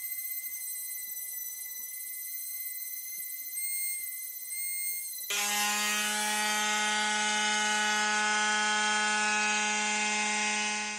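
Electric detail sander running while it rounds the edges of a 5 mm carbon fiber plate. For the first five seconds it is a steady high whine. Then it changes abruptly to a louder, lower steady buzz.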